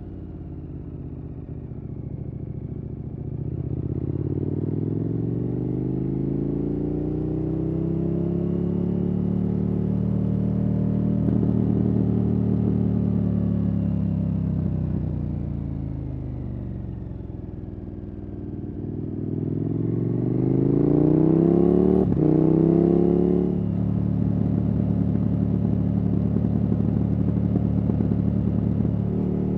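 KTM 1290 Super Adventure S V-twin engine with a Wings aftermarket exhaust, on and off the throttle. Its pitch climbs, sags, then climbs hard to its loudest about three-quarters of the way through. It then drops suddenly to a steady lower note.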